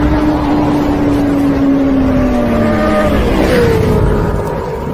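Motorcycle engine sound effect: a steady drone over a low rumble, its pitch sinking about two seconds in and dropping again a second later.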